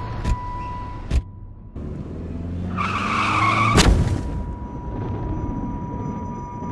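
Staged car crash sound effects: tyres screech for about a second, then a loud crash with breaking windscreen glass about four seconds in. A steady high-pitched ringing tone runs underneath, with two sharp clicks in the first second or so.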